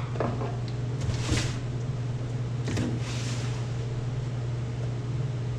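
A cardboard box being opened, with a few short rustling scrapes of the cardboard and packing, over a steady low background hum.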